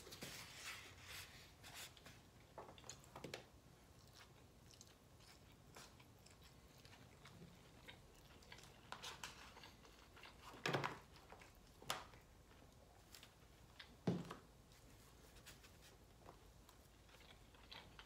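Quiet close-up chewing and mouth sounds of someone eating takeout noodles and rice, with soft scattered clicks of a fork in a foam container. There are a few sharper, louder knocks or handling noises about eleven, twelve and fourteen seconds in.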